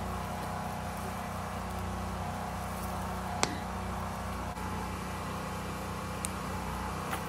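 A wood campfire burning, with one sharp pop about three and a half seconds in and two fainter ones near the end, over a steady low machine hum.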